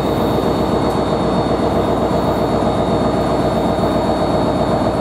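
NJ Transit PL42AC diesel-electric locomotive running as it rolls slowly along the platform: a steady, loud engine drone with a thin high whine over it.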